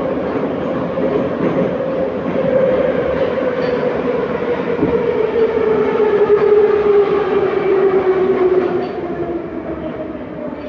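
Metro car of type 81-714.5 running, heard from inside: a whine with several overtones falls steadily in pitch over the rumble of the wheels as the train slows, and the sound drops off near the end.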